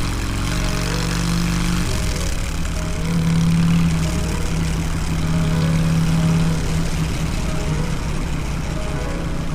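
Harley-Davidson Softail Deluxe V-twin engine running on the road, its note dipping and breaking up briefly about two seconds in before running on steadily.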